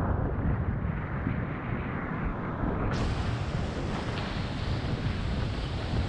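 Wind buffeting the microphone of an action camera mounted on the windsurf boom, over the rush of whitewater. The sound is muffled and low for the first three seconds, then turns suddenly brighter and hissier.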